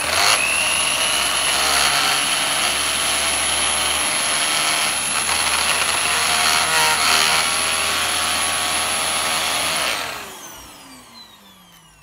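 Dyson DC15 Animal upright vacuum cleaner switched on: the motor's whine rises briefly as it comes up to speed, then runs steadily. About ten seconds in it is switched off and winds down, its whine falling away. The machine is running with a faulty brush roll, part of which is not being driven and does not turn.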